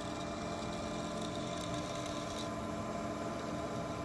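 Metal lathe running steadily while a twist drill in the tailstock chuck bores into a spinning metal workpiece. The machine hum carries several steady tones, with a faint hiss of cutting in the middle.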